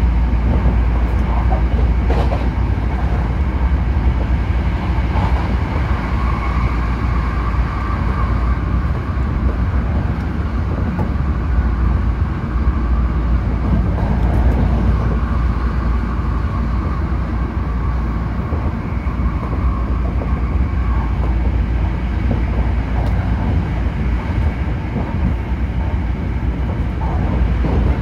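Hankyu limited express train running at speed, heard from inside the carriage: a steady low rumble of wheels on the track, with a whine that swells and fades twice.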